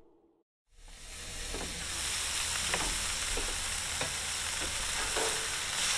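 Burger patties sizzling on a small portable grill, fading up out of a brief silence into a steady hiss, with faint light clicks about every second.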